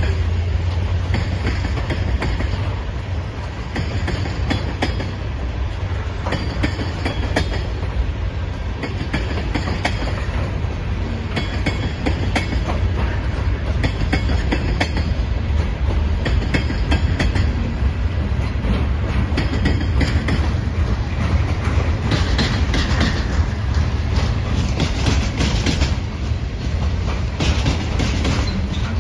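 A freight train's tank cars and covered hopper cars rolling past with a steady rumble. The clickety-clack of wheels over the rail joints comes every second or two.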